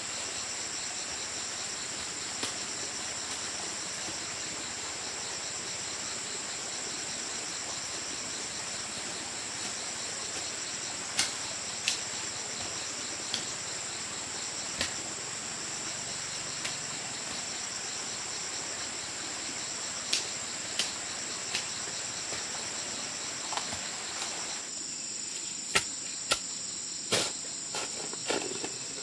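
Insects chirring steadily in high, pulsing bands, with scattered sharp knocks through the second half.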